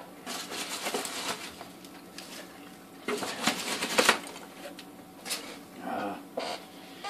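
Hands rummaging through polystyrene packing peanuts in a cardboard box: two spells of rustling and clattering, the first near the start and the second, the loudest, about three seconds in, with a few shorter rustles after.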